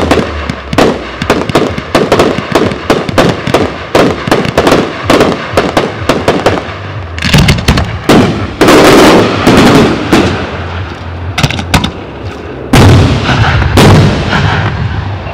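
Fireworks battery firing in rapid succession, about four sharp shots a second. Around the middle and again near the end come louder, dense spells of bursting and crackling as salvos of aerial effects break.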